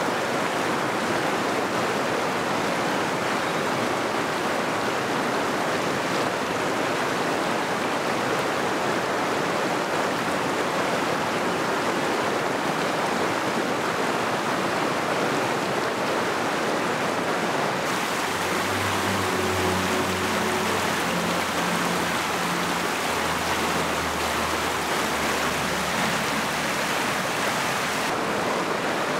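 Fast mountain river rushing over rocks, a steady, loud, even rush of water. Faint low held tones come in under it about two-thirds of the way through.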